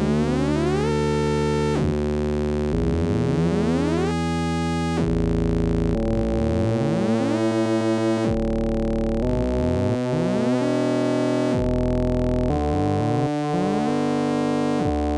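Buchla modular synthesizer playing a hard-sync patch: the principal oscillator sweeps a hard-synced modulation oscillator, so the tone jumps in steps to a new note about once a second, with a rising glide under each step. The steps fall on notes of the pentatonic scale, which hard sync produces on this synth.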